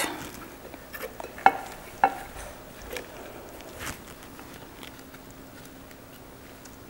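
Quiet wet handling of cream-coated potato and sweet potato slices being stacked by hand into a ceramic casserole dish, with a few light clicks and taps in the first four seconds.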